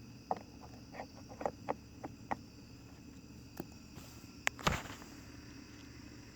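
Scattered light clicks and knocks of hard parts being handled, several in quick succession over the first couple of seconds, then a single one, and a louder double knock about four and a half seconds in.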